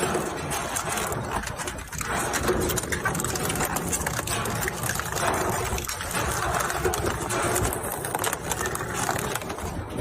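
Plastic shredder machine running, its motor humming under a dense, irregular clatter of plastic pieces in the cutting chamber.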